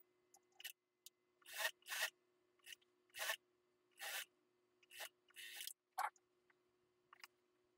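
Suit-jacket cloth rubbing and rustling as hands shift and smooth it on a sewing machine bed, in a string of about ten short brushing strokes.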